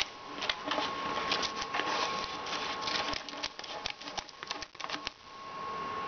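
Hard plastic parts of a humidifier base being handled: a quick, irregular run of clicks and light rattles that stops about five seconds in.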